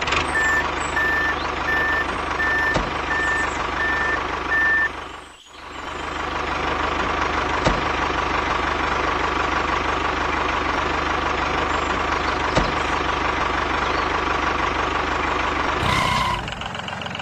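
A small motor and gearbox run steadily with a whine, driving a DIY mini toy tractor that pulls a plough through sand. In the first five seconds a run of eight evenly spaced high beeps plays over it. The sound briefly drops out just after five seconds.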